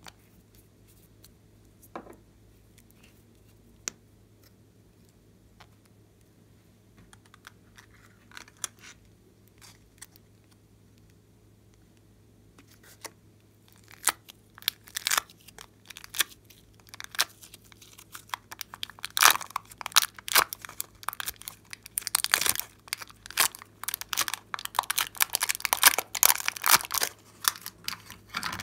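Thin clear plastic tray crinkling and crackling as soft clay cubes are pressed and pulled out of its cells, building to a dense run of crackles from about halfway on. Before that there are only a few soft clicks from small containers being handled.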